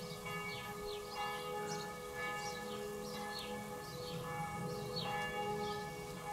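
Church bells ringing, a steady wash of sustained overlapping tones. Short falling bird chirps come over them about once or twice a second.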